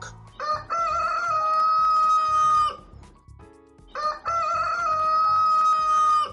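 Rooster crowing twice, each crow a long cock-a-doodle-doo of about two seconds that wavers at the start and then holds one pitch.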